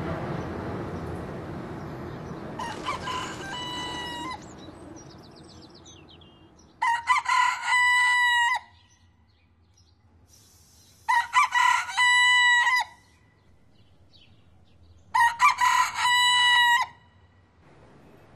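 White pet rooster crowing four times: first a fainter crow about three seconds in, then three loud cock-a-doodle-doos of about two seconds each, some four seconds apart. A low rumble fades away under the first crow. The owners had bought the bird as a broiler variety that would not crow.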